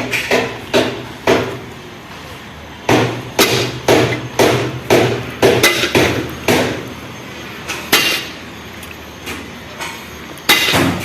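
Hammer blows on the steel of an excavator's track chain, struck in quick runs of about two a second with brief pauses between runs.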